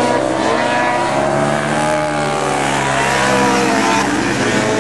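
Several racing quad (ATV) engines running hard together, their pitches rising and falling and overlapping as the riders work the throttle.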